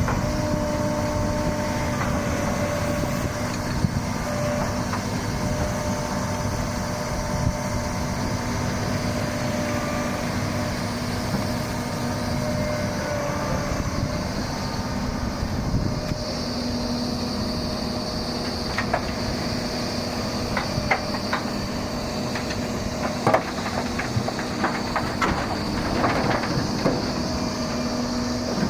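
Doosan 300LC-V excavator's diesel engine running steadily at working revs. In the second half, a series of sharp clanks and knocks sounds over it.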